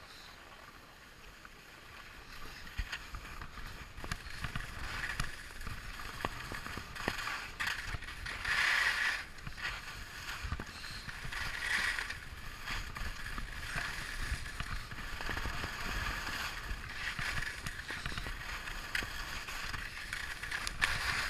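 Skis scraping and hissing over packed snow during a downhill run, swelling with each carved turn, with scattered small knocks. Quieter at first, picking up about two seconds in.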